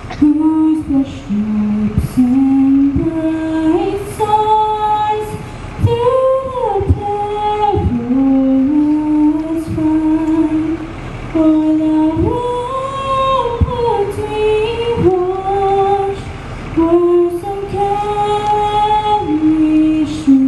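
A teenage girl singing the national anthem solo and unaccompanied into a handheld microphone, one melodic line rising and falling phrase by phrase.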